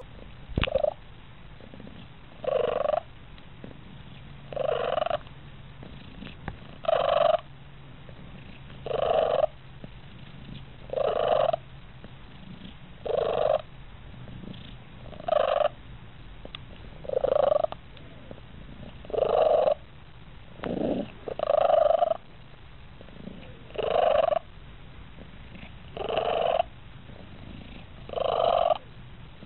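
Siamese cat purring, in loud surges about every two seconds.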